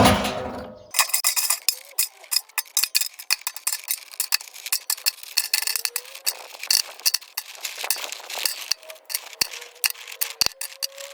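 Stones knocking and clattering inside a Miele washing machine's drum: a dense, irregular rattle of hard hits. It opens with a loud crash that dies away over about a second.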